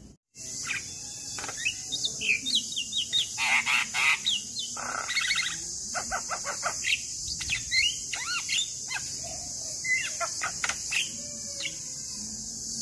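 Male Javan myna singing: a rapid, varied run of whistles, chirps and chattering notes, starting abruptly a moment in and thinning out near the end, over a steady high hiss.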